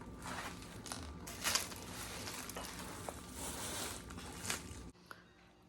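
Packaging crinkling and rustling as a newly unboxed folding bike is unwrapped, with a few louder crackles, the loudest about one and a half seconds in. It stops abruptly near the end.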